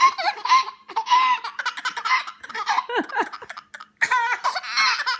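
Two babies laughing at each other in repeated high-pitched bursts, with a short break about four seconds in.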